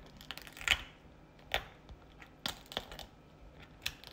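Shell of a steamed snow crab cracking and clicking as fingers pry off its abdominal flap: a few sharp, irregular cracks, the loudest about three-quarters of a second in.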